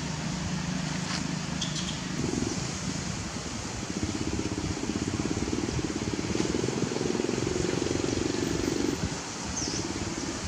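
A steady motor drone, low at first and a little higher from about four seconds in, over a constant outdoor hiss.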